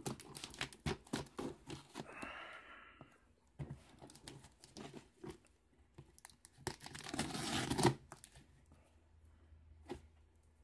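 A cardboard box's packing tape being slit with a pocketknife and torn open: a quick run of scrapes and cracks, then a longer, louder tear of tape or cardboard near the end, with rustling and crinkling in between.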